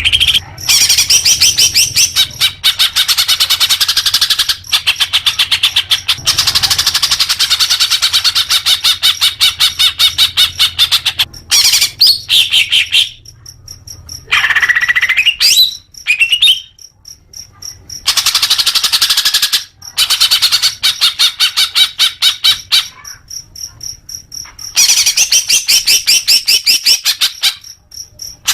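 Green leafbird (cucak hijau) singing: long, loud runs of fast, rapidly repeated chattering notes, broken by short pauses and a few sweeping rising-and-falling whistles.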